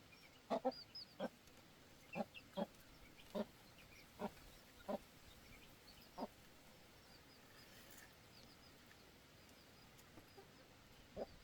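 A hen clucking in short, separate clucks, most of them in the first six seconds and one more near the end, with faint high chirps among them.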